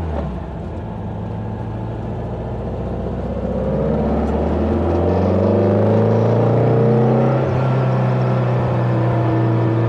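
The 2332 cc air-cooled flat-four of a 1960 VW Beetle, heard from inside the cabin as the car drives and accelerates. The engine note climbs in pitch and grows louder over the first several seconds, dips briefly about seven and a half seconds in, then runs steady.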